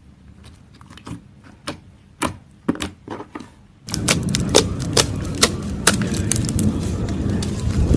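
Slime being squeezed and poked by hand, giving sharp sticky clicks and pops. The clicks are sparse at first, then about four seconds in they turn much louder and into a dense crackling run.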